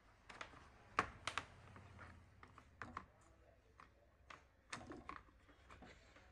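Faint, irregular clicks and taps of hands fitting the circuit board and wiring back into an induction stove's opened plastic casing, a dozen or so light knocks spaced unevenly.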